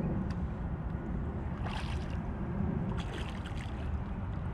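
Steady low rumble of wind and moving water around a kayak, with a few faint brief splashy sounds about two and three seconds in as a hooked bass is brought in.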